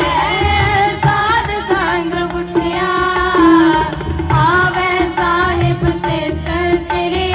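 Women's voices singing a melody together into microphones, with tabla drums keeping a steady beat underneath, amplified through loudspeakers.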